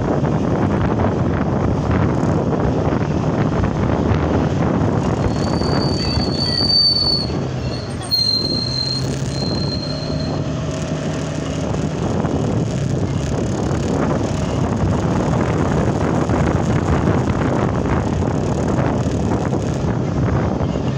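Steady wind rush and road noise from moving along a street in traffic. A high thin squeal comes in several short pieces a few seconds in.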